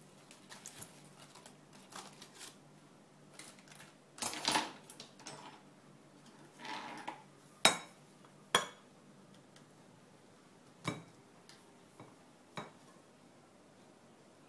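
Metal tongs and cutlery clinking against a ceramic plate, about four sharp clinks in the second half, with short rustles of aluminium foil being pulled open before them.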